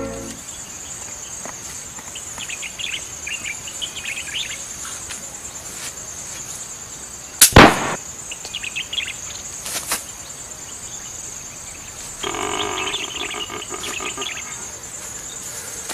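Insects chirring steadily with bits of bird chirping, broken by one sharp loud knock about seven and a half seconds in and a lighter one a couple of seconds later. A steadier pitched call or tone joins near the end.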